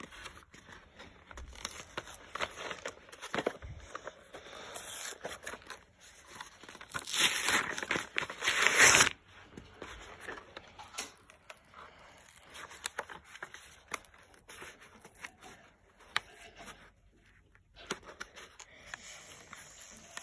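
Cardboard-backed plastic blister packaging of a toy train being pulled and torn open by hand: scattered crinkling, scraping and tapping, with a louder stretch of tearing about seven to nine seconds in.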